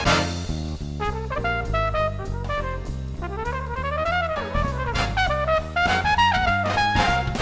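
Jazz band music with trumpet and trombone leads over a steady bass and drum beat.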